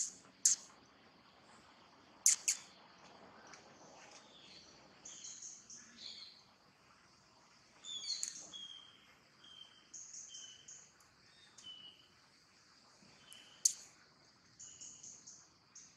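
Birds calling and chirping: many short high chirps, a few louder and sharper than the rest near the start and near the end, and from about eight seconds in a run of short falling notes repeated roughly once a second.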